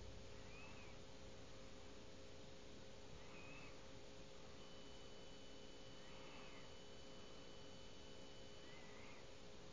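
Near silence: faint room tone with a steady low hum, broken by a faint short chirp about every three seconds.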